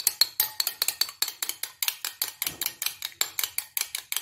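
Metal spoon beating an egg in a small glass bowl, clinking against the glass in a quick, steady rhythm.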